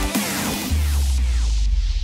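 Electronic outro music on its last hit: a held deep bass note under a hissing wash that slowly dies away.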